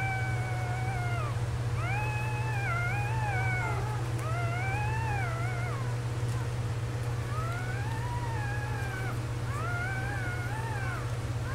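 Newborn kitten mewing: about six drawn-out cries, each rising then falling in pitch, coming roughly every two seconds over a steady low hum.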